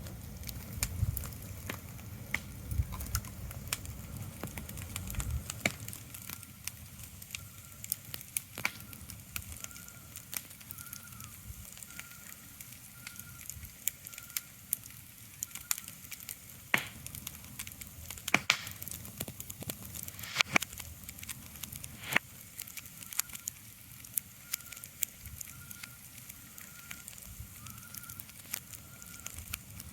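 Ambient crackling: scattered sharp clicks and a few louder pops over a soft hiss, with a faint steady high tone that swells gently at regular intervals. A low rumble underneath stops about five seconds in.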